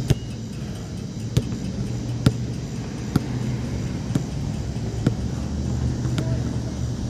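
Basketball bouncing on an asphalt court: a sharp smack about once a second, seven times, the first the loudest, over a steady low rumble.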